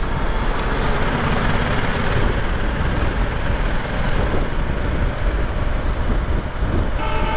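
Wind rush and road noise on a motorcycle-mounted microphone while riding a Ducati Multistrada 1260 Enduro in traffic, with a low engine rumble underneath. A steady tone comes in near the end.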